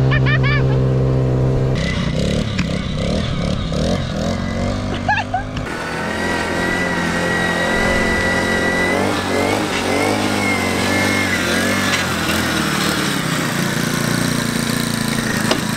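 Small gasoline engine of a motorized ride-on cooler running under way, its pitch shifting with the throttle. The sound changes abruptly about two seconds in and again about halfway through.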